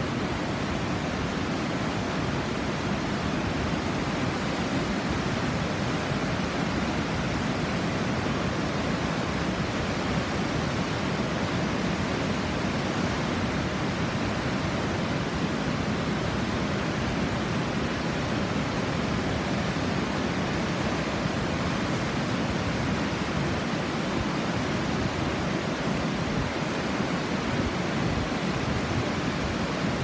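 Mekong River white water pouring over a rock ledge and through rapids: a steady, unbroken rush of falling water.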